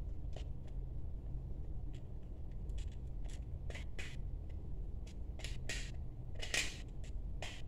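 Hand screwdriver turning a screw at a flush wall socket back box: irregular small clicks and scrapes of the blade in the screw head, a couple of them louder near the end.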